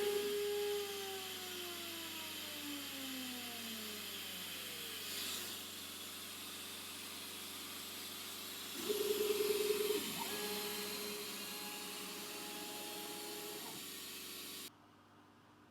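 CNC router spindle spinning down after milling: its high whine falls steadily in pitch over about four seconds, over a steady hiss. About nine seconds in there is a brief pulsing buzz, then a steady hum, and all of it cuts off sharply near the end.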